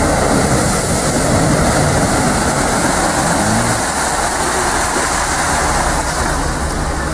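Toyota FJ Cruiser's engine running hard as the truck plows through a deep mud hole, under a dense, steady rush of mud and water splashing and spraying off it.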